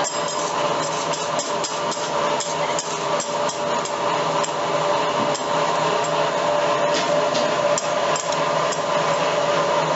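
Metal spatulas clinking and scraping on a flat steel teppanyaki griddle as a hibachi chef chops and scrambles egg, several sharp taps a second, irregular. A steady hum of restaurant noise sits beneath.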